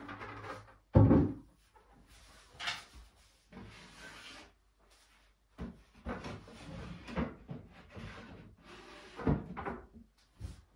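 Birch plywood panels of a collapsible shooting table being lifted apart and handled: irregular wooden knocks and scraping, with a loud knock about a second in and another sharp knock near the end.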